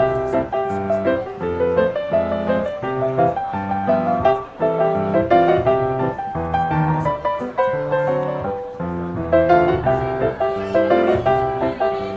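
Background music: a melodic piano piece, with notes and chords moving along steadily.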